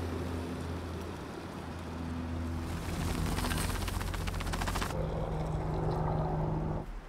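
A Jetboil gas stove's burner runs with a steady low hum as water boils in its cup. Then ground coffee is shaken from a plastic bag into a steel camp mug, a dense pattering rush, and hot water is poured from the Jetboil into the mug. The pour stops shortly before the end.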